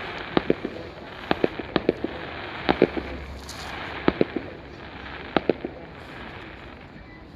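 Fireworks bursting overhead: sharp bangs in quick clusters of two to four, over a steady background haze, thinning out after about six seconds.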